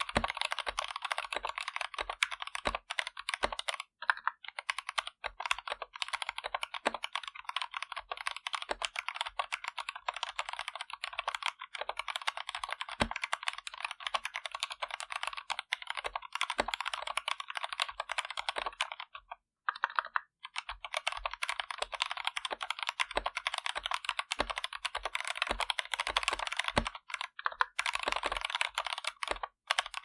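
Fast, continuous typing on an Anne Pro 2 60% mechanical keyboard with stock Kailh Box Red linear switches: a dense stream of key clacks, with a short pause about two-thirds of the way through.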